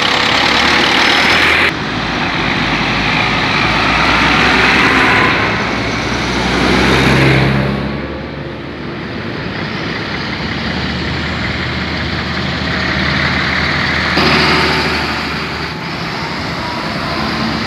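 Farm tractors and road traffic passing close by: diesel engines running and tyre noise. The sound swells as one vehicle passes about a third of the way in, and changes abruptly twice where the recording is cut.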